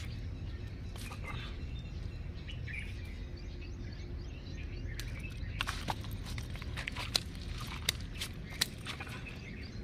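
Birds chirping over a steady low outdoor rumble, with a scatter of sharp clicks and taps in the second half.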